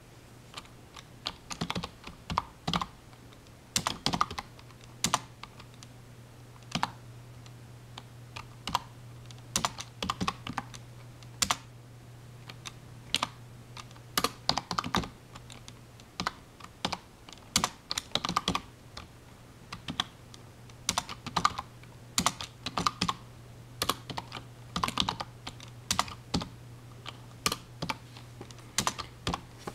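Typing on a computer keyboard: irregular runs of key clicks broken by pauses of a second or two, over a steady low hum.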